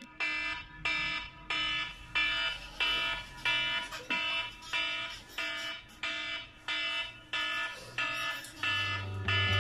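Phone alarm ringing: a repeated electronic chime of several tones, about three every two seconds. Near the end, music with a deep bass comes in.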